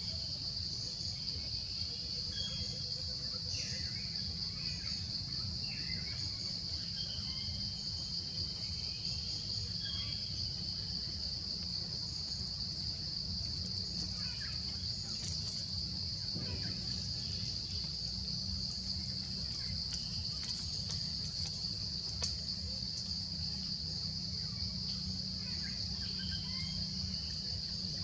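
Steady, high-pitched chorus of insects like crickets, with a few faint bird chirps now and then over a low rumble.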